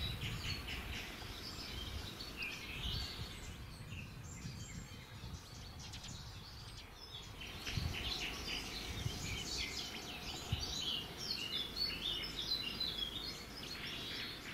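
Small birds chirping and twittering in quick runs, thinning out around the middle and busiest in the second half, over a steady low rumble.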